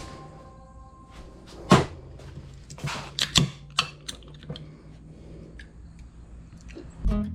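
A scatter of sharp clicks and knocks of tools and hardware being handled, the loudest about two seconds in and a cluster of them around three seconds, over a faint low hum.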